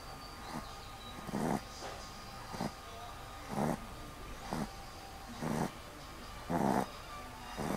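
A sleeping dog snoring: short rasping snores about once a second, alternately louder and softer.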